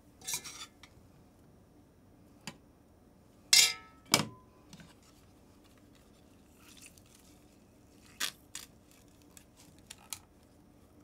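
Kitchen handling sounds of a metal potato ricer pressing cooked potatoes: scattered clicks and knocks, the loudest a ringing metal clank about three and a half seconds in followed closely by a thud, with softer squeezing sounds between.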